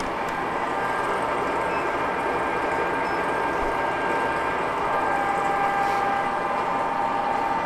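Steady running hum of a Cincinnati 2ML horizontal milling machine, with a few steady high whining tones over it.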